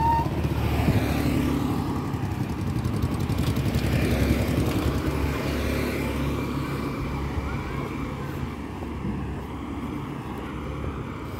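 Motor scooter engines passing close by, loudest in the first few seconds and then fading away down the street.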